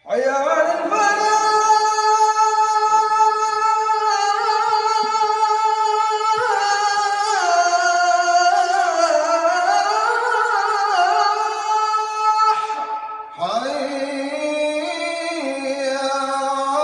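Solo voice chanting Quran recitation in long, ornamented held notes; after a short break near the end, a new phrase begins at a lower pitch.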